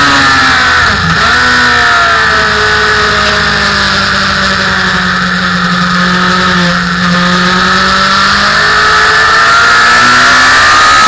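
Motorcycle engine heard from on board, with wind rush. The engine note drops as the bike brakes from about 100 mph and changes down into a corner, holds low and steady while it leans through, then rises again as the rider accelerates out near the end.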